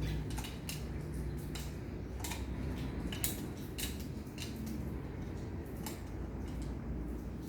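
Light, irregular clicks and clinks, about two a second, of plastic feeding-bottle parts being handled and fitted together, over a low steady hum.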